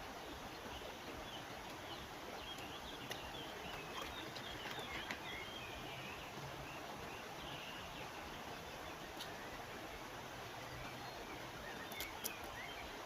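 Steady rush of a river with small birds chirping on and off over it, busiest in the middle and again near the end, and a few light clicks.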